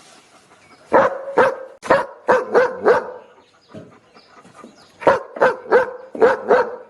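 A dog barking in two quick volleys of about six barks each, with a pause of a couple of seconds between them.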